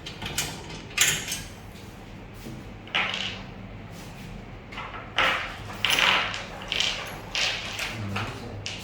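Irregular metal clinks and scrapes, about nine of them spread unevenly: steel cable tray joint-plate hardware being bolted up and tightened with a 12 mm open-end spanner.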